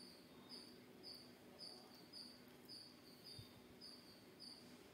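Near silence with a faint cricket chirping evenly, about two short high chirps a second.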